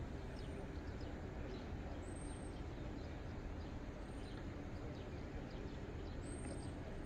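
Outdoor ambience: small birds chirping, short high chirps repeated every fraction of a second, over a steady low background rumble.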